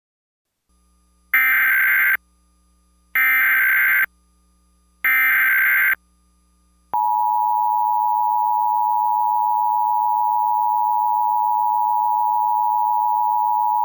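Emergency Alert System SAME header: three short bursts of digital data tones about two seconds apart. About seven seconds in, the steady two-tone EAS attention signal (853 and 960 Hz together) begins, marking the start of an emergency alert.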